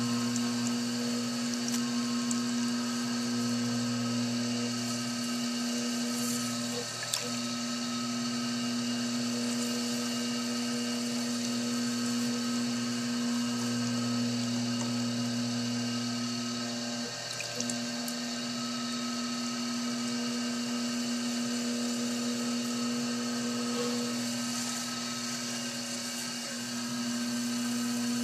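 Electric potter's wheel running with a steady motor hum while wet hands press and slide on the spinning clay to center it, adding a watery swish. The hum dips briefly twice, about seven and seventeen seconds in.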